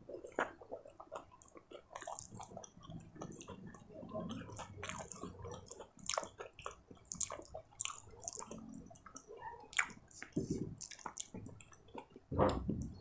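Close-miked wet, sticky squelching of fingers mixing rice with paneer masala gravy on a paper plate, mixed with wet chewing, in a run of small irregular clicks. One louder low thump comes near the end.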